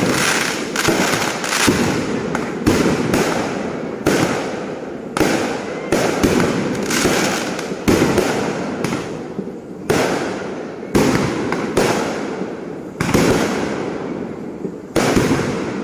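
Fireworks going off in quick succession: a sharp bang every half second to a second, each one fading away before the next.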